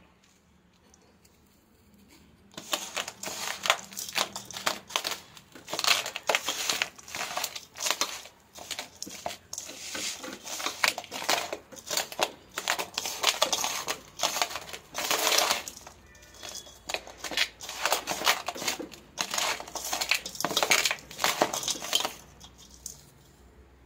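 A hand kneading and mixing crumbly potting soil in a stainless-steel bowl: irregular gritty crunching and scraping, starting about two and a half seconds in and stopping shortly before the end.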